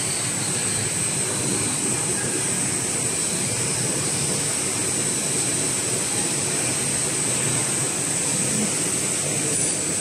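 Steady mechanical drone of a popcorn production line running, with its rotating stainless-steel seasoning drums and conveyor motors, and a constant high-pitched hiss over it.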